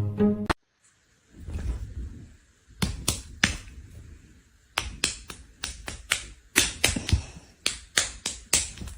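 Plucked string music cuts off about half a second in. After a short low rumble comes a run of sharp, irregular taps or clicks, fifteen or more, spaced roughly a quarter to half a second apart.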